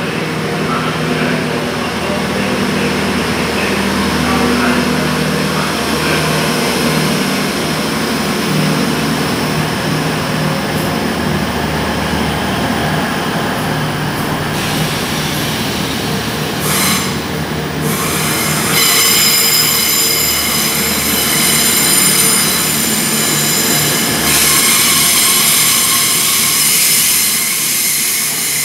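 Grand Central Class 180 diesel multiple unit pulling out and accelerating away, its diesel engines running under power with a steady low hum. From about two-thirds of the way through, a high-pitched squeal rides over the running noise.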